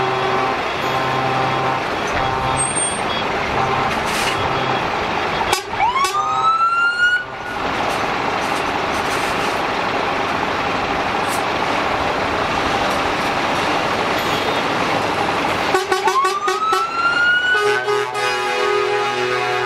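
Fire trucks' horns sounding in short repeated blasts, and a siren winding up, its pitch rising and levelling off over about a second and a half, twice. After the second wind-up several horns sound together.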